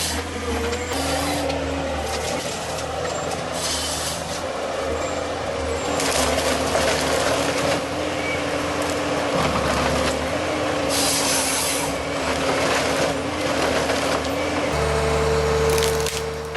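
Forestry harvester at work: the machine runs with a steady, shifting hum, broken by bursts of rough noise as it cuts and strips a tree.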